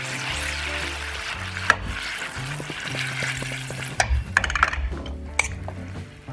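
Pancetta and pasta cooking water sizzling and bubbling in a frying pan as the pan is swirled to emulsify the fat into the water, with a few sharp clicks and knocks about two-thirds of the way in. Background music plays underneath.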